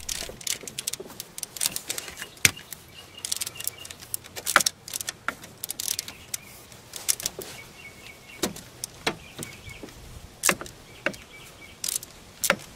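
Hand ratchet and socket clicking in short strokes on a bolt of a 6.0 Power Stroke diesel engine, with metal tools clinking against each other and the engine. The clicks come irregularly, in short groups with gaps between.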